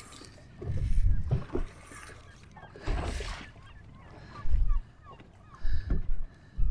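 Wind buffeting the microphone in uneven low gusts, with water lapping against the boat's hull.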